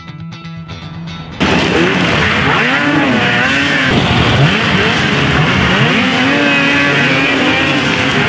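Background music, which about a second and a half in gives way suddenly to racing snowmobiles: several Polaris two-stroke race sled engines revving up and down at high speed over a dense rush of track noise.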